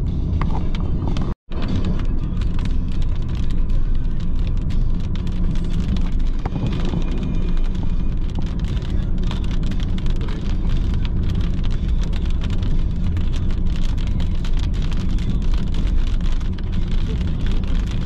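A car driving: a steady low rumble of road and engine noise with many small clicks and rattles. The sound cuts out for a moment about a second and a half in.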